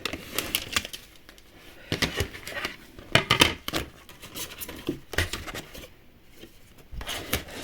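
Small plastic and card miniature pieces being handled and pressed into place: irregular light clicks, taps and short scratchy rustles.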